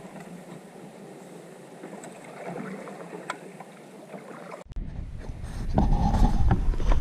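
Paddling a Wenonah Prism ultralight solo canoe: quiet water sounds with a few light knocks, then from about two-thirds through, loud wind buffeting on the microphone with splashing from the paddle strokes.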